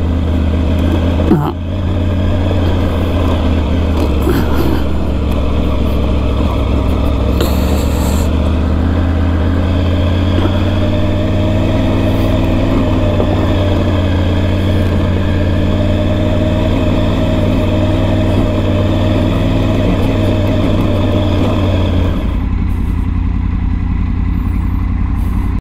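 Triumph 900 GT Pro motorcycle's three-cylinder engine running steadily while riding along a gravel road, heard from on board the bike. Near the end the sound shifts to a quieter, lower mix.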